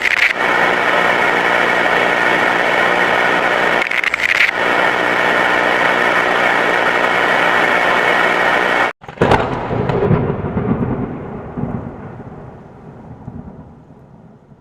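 Thunderstorm sound effect: a steady, loud rushing noise cuts off abruptly about nine seconds in. A sudden thunderclap follows, its deep rumble dying away over several seconds.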